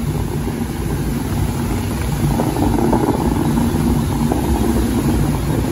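Boat engine running steadily with a low, even hum, under a continuous rushing hiss.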